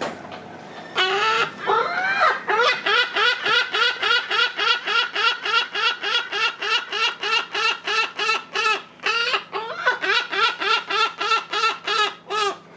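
Lesser black-backed gull calling over and over in a fast, even series of sharp notes, about three a second, with a short break about nine seconds in. It keeps calling at a person who is offering it food.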